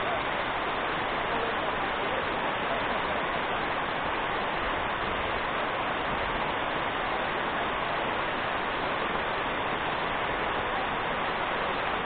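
Waterfall cascading down a rock face: a steady rush of falling water.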